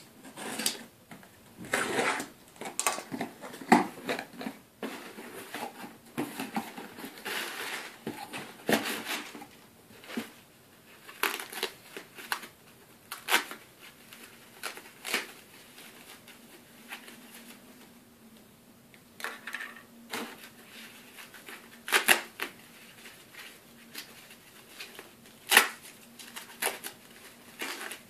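Cardboard box being unpacked: a box cutter slitting the packing tape first, then flaps pushed open and crumpled paper packing rustled and pulled out. The sound is a string of irregular crackles, rustles and knocks.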